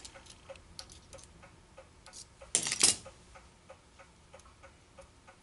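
A brief scraping, handling sound a little past the middle as a piece of tool steel is tried into a freshly cut key slot in a steel block, over a faint steady ticking of about three ticks a second.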